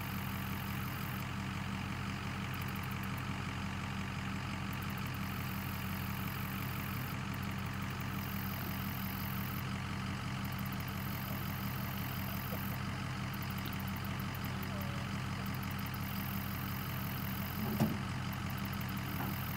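A Ford pickup truck's engine idling steadily, with a single short knock near the end.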